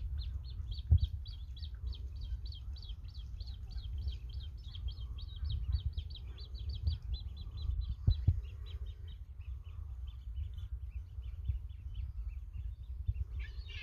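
A bird calling a long series of short, high, evenly repeated notes, about four a second, that fade off after about nine seconds, with a brief burst of chirping near the end. Under it runs a steady low rumble.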